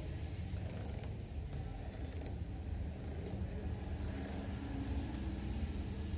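Keys of a Dell Latitude 7275's detachable keyboard being pressed in quick runs for a key test, giving many soft, irregular clicks over a steady low background hum.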